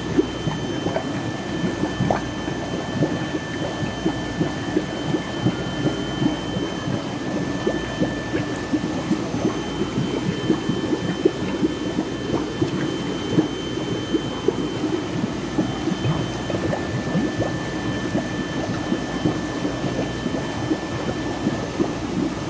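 Water in an eel-rearing tank bubbling and splashing, a dense steady crackle of small splashes, with a faint steady high tone underneath.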